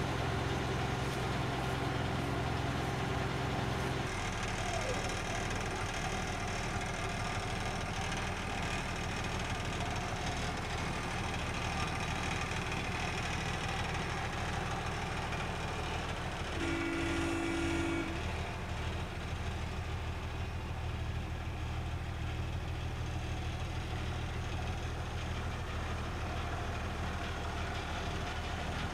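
The Fuji Heavy Industries DB11 snow-plough motor car's diesel engine idling steadily while the car is turned by hand; its note shifts about four seconds in. A short steady tone sounds once, for about a second, a little past the middle.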